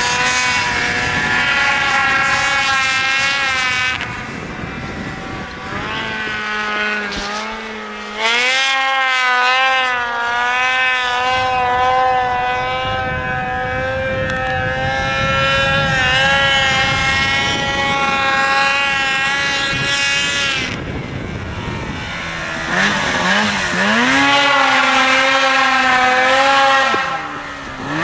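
Snowmobile engines revving and easing off again and again, the pitch climbing and dropping as the sleds carve through snow. Near the end a sled close by revs hard several times.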